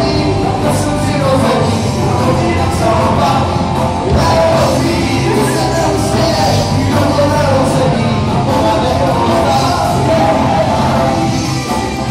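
Live rock band playing loud, with electric guitar and singing, picked up by a phone's microphone from within the audience.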